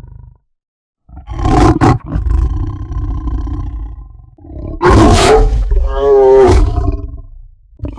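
Saber-toothed cat (Smilodon) sound effect: after a brief silence, two long big-cat roars, the first starting about a second in and the second near the middle, wavering before it fades.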